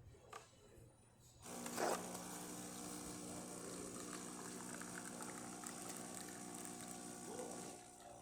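Gaggia Babila super-automatic espresso machine running part of a brewing cycle. A steady mechanical hum starts about a second and a half in, with a brief louder rush just after it begins, and stops shortly before the end.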